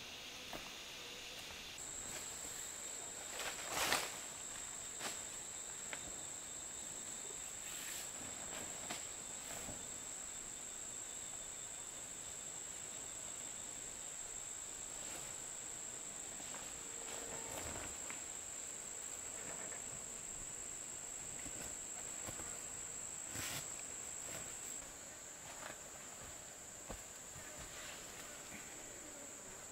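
Forest insects calling in one steady, high-pitched tone, with scattered light clicks and knocks, the sharpest about four seconds in.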